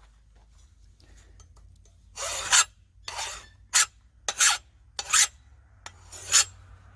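Steel lawn mower blade being filed by hand: about six short rasping strokes, starting about two seconds in.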